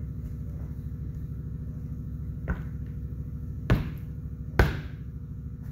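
Steel tire irons striking a truck tire's steel wheel rim as the bead is levered over it by hand: three metal strikes, the last two loudest and about a second apart, with a short ring. Under them a steady low machine hum.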